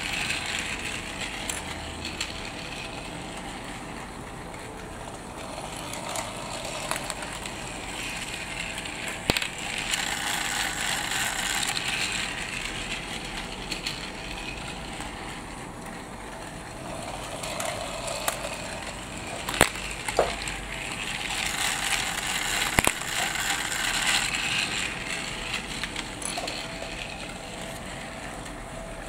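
Motorized TrackMaster Fearless Freddie toy engine whirring as it runs round a plastic track pulling a wagon, growing louder twice as it passes close, with a few sharp clicks.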